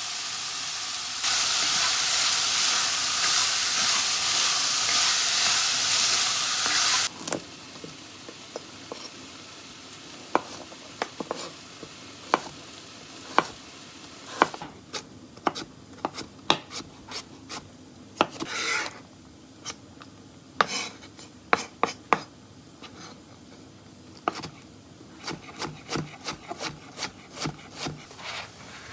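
Diced onions sizzling in a cast-iron Staub cocotte, getting louder about a second in and stopping suddenly at about seven seconds. Then a kitchen knife cuts carrots on a cutting board: single sharp knocks about a second apart, and near the end a quick run of chops as the carrot sticks are diced.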